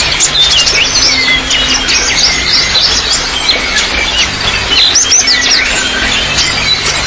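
Several small birds chirping and whistling rapidly over a steady trickle of running water.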